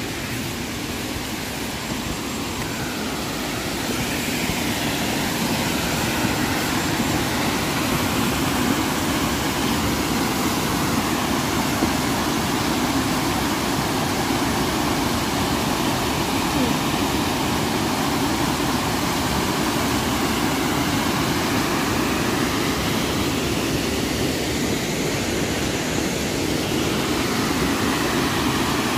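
Steady rush of water in a gorge, a stream or waterfall, growing louder about four seconds in.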